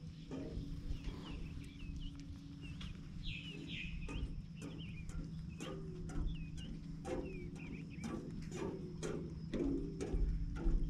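Small birds chirping over and over in short, quick calls, with footsteps knocking on the wooden pier planks, coming more often from about halfway through.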